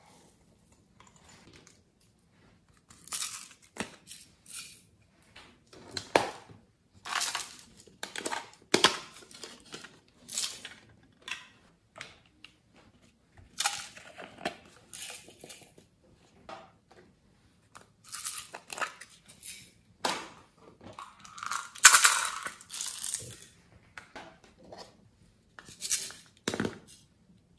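Plastic novelty makeup cases being handled: irregular short scrapes, clicks and crinkling rustles, with a louder, longer scrape about three-quarters of the way through.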